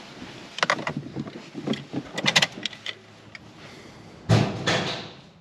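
Scattered clicks and knocks of keys and handling inside the Honda Civic's cabin as the ignition is switched on, then a single loud sound about four seconds in that dies away over about a second.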